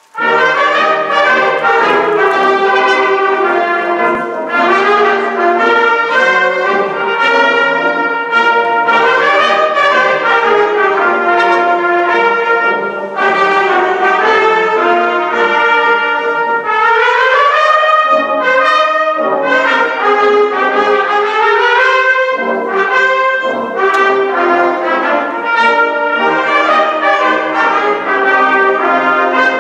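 Brass band playing a piece, coming in loud all at once right at the start and carrying on with full held chords and a moving melody.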